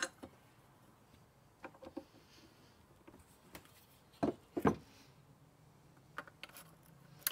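Scattered light clicks and knocks of the CV carburettors of a 2006 Hyosung GT650S and their parts being handled and fitted back together during reassembly. The two loudest knocks come a little after four seconds in and around four and a half seconds in.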